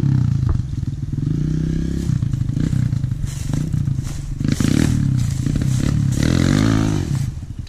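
Dirt bike engine revving up and easing off several times as the rider works the clutch for slow wheelies. It fades quickly near the end as the bike rides off.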